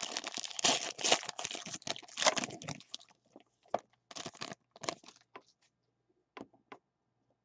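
Foil wrapper of a football trading-card pack being torn open and crinkled for about three seconds, followed by scattered light clicks and rustles.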